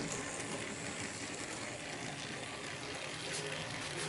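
Model diesel locomotive running along the track: a steady, even whirr of its small electric motor and wheels on the rails.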